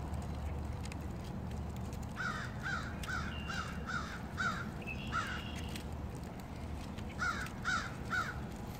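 A crow cawing in a quick run of about seven caws a couple of seconds in, then three or four more near the end, over a low steady rumble.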